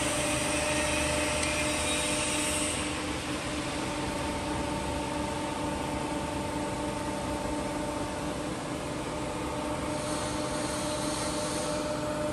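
Jones & Shipman 1078 cylindrical grinder running: a steady mechanical hum with a constant whining tone and a broad hiss. A higher hiss drops away about three seconds in.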